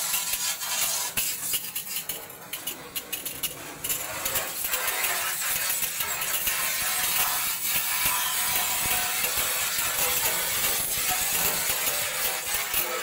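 Water jet from a hose spray nozzle hitting and splattering on a metal checker-plate floor: a steady hiss full of small ticks. It eases off briefly about two seconds in, then runs evenly.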